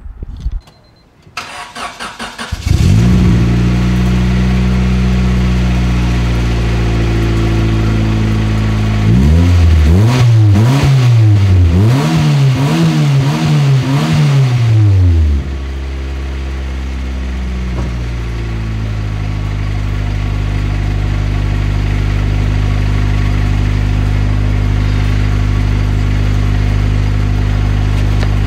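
A Honda Civic's turbocharged D16 1.6-litre four-cylinder, heard through its newly built 2.5-inch exhaust and muffler, cranks briefly and catches about two and a half seconds in. It runs at a fast idle, is blipped several times in quick succession, then settles to a steady idle.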